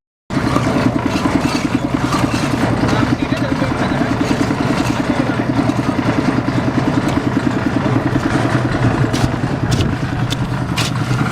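Engine running steadily with a fast, even pulse, with a few sharp knocks near the end.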